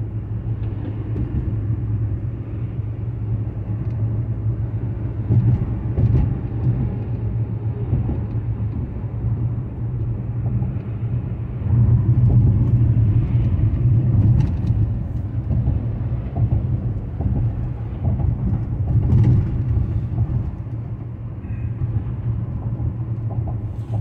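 Car driving at road speed, heard from inside: a steady low rumble of tyres and engine, with a few faint knocks from bumps in the road surface.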